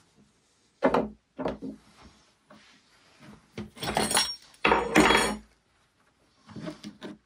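Workbench handling noise: a couple of sharp knocks of tools and metal lamp-arm parts on a wooden bench about a second in, then two louder rustling scrapes as a sleeve sweeps close past, and light clicks near the end as needle-nose pliers are picked up.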